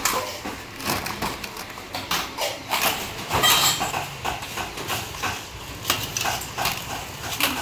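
Irregular clinks and clatters of small stainless steel rice cups and metal tongs knocking against a metal steamer tray and serving trays.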